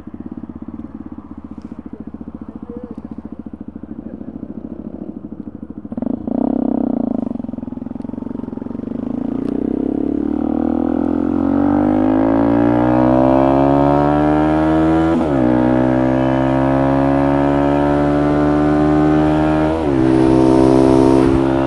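Motorcycle engine running at low revs, then picking up about six seconds in and accelerating, its pitch rising steadily. The pitch drops suddenly twice, about fifteen and twenty seconds in, as it changes up a gear, then climbs again.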